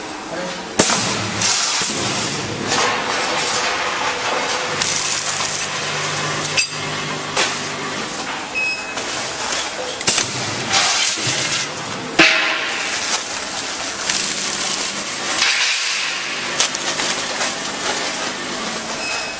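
Vertical form-fill-seal packaging machine running while bagging popcorn. Sharp clacks come every few seconds, with spells of rushing noise over a steady hum.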